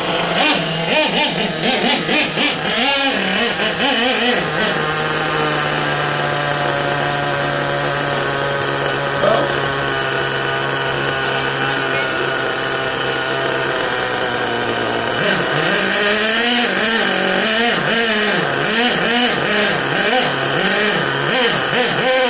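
Small nitro RC engine revving up and down, then holding a steady pitch for about ten seconds before revving and dropping again.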